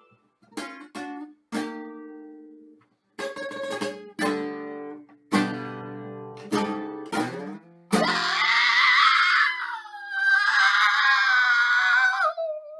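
Acoustic guitar strummed in a string of separate chords, each left to ring. About eight seconds in, a loud sung vocal comes in over it: long wavering notes that break off briefly and fall in pitch near the end.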